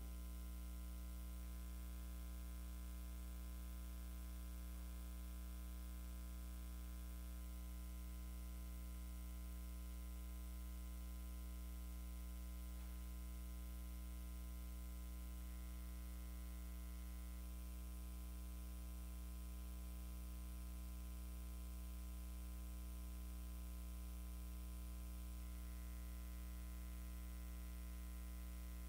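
Steady low electrical mains hum with faint hiss from the sound system, unchanging throughout.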